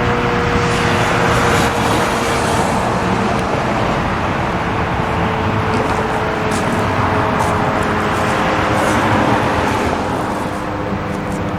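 Federal Signal RSH-10A Thunderbeam electronic outdoor warning siren sounding a steady tone over a constant wash of road traffic noise.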